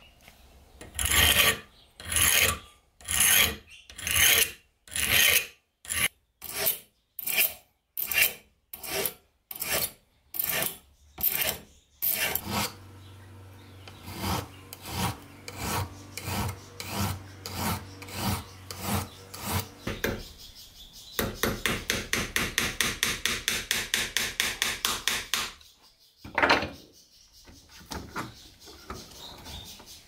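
A hand file worked back and forth on a steel knife blade, one stroke after another. For the first twelve seconds the strokes are loud and speed up from about one to two a second. After that come softer strokes, then a fast run of short strokes at about five a second, and finally a couple of single strokes near the end.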